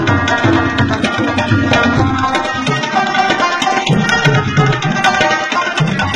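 Two rababs playing a fast plucked instrumental tune over a steady hand-drum beat.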